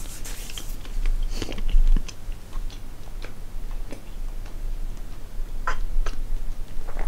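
A person chewing soft gummy candies with a liquid filling, with scattered wet clicks of the mouth.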